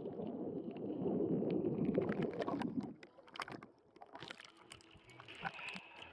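Muffled rushing, gurgling water noise from an action camera held underwater for about three seconds. It then drops away to quieter water sounds with small clicks and splashes as the camera sits at the surface.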